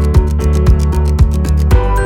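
Background music with a steady beat: low drum hits about twice a second with quick ticks between them. Just before the end it moves into a section with held notes.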